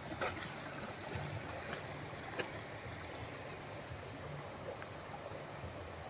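Shallow stream running over rocks, a steady wash of water noise. A few sharp clicks come in the first two and a half seconds.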